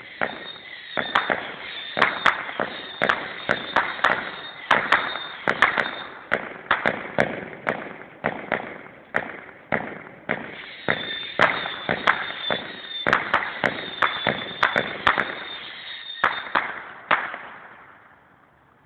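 Millennium Bug firework cake firing whistling crackling comets that burst into bangs: a steady high whistle over a rapid string of sharp reports, in two long volleys, with the last shots about 17 seconds in.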